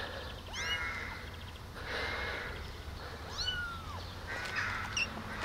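Tiny kittens mewing: several thin, high calls, one after another a second or so apart.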